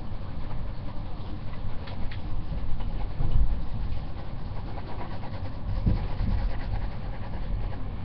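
Pencil scratching back and forth on paper as a drawing is shaded in, over a low rumble from the paper and hands moving on the desk, with a louder swell about three seconds in.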